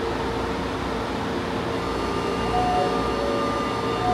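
A São Paulo Metro train at the platform: a steady rumble and hum, with steady electric whine tones coming in about two seconds in.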